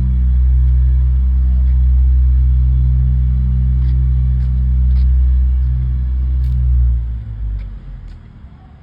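Heavy road-construction machine's engine running steadily with a deep rumble, dropping away sharply about seven seconds in.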